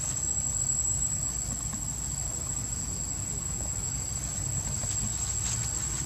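Insects give a steady, high-pitched, unbroken drone over a constant low rumble, with a few faint rustles in the leaves near the end.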